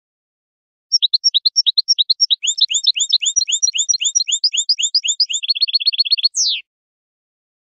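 European goldfinch singing. About a second in, a run of clear, high, repeated chirps begins at about five a second. Near the end it quickens into a fast trill and finishes on a single falling slur.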